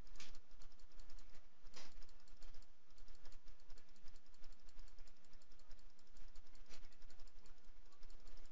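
Computer mouse clicking rapidly and steadily, several clicks a second, with a few louder clicks now and then.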